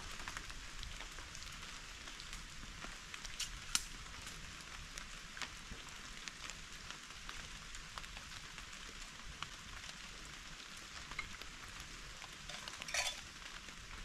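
Steady rain: an even hiss of drops with many small ticks, and a few sharper taps about four seconds in and near the end.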